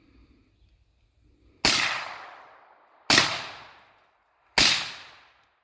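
Three rifle shots from a short-barrelled AR, about a second and a half apart, each a loud crack trailing off in a long echo.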